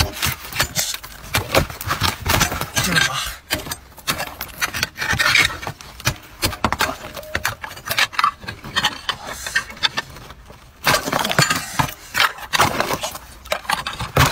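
Ice being chipped and pried open with a pointed tool: many sharp knocks and cracks, with broken pieces of ice clinking and scraping. The strikes ease off briefly a little after two-thirds of the way through, then resume.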